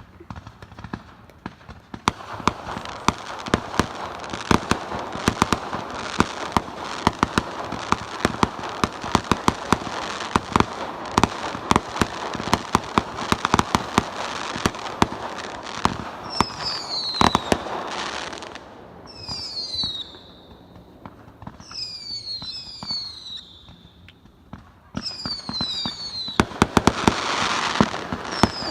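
Fireworks going off: a dense, rapid crackle of many small bangs starts about two seconds in and keeps going for some fifteen seconds. Then come several short groups of high whistles falling in pitch, with a few bangs between them, and the crackling builds again near the end.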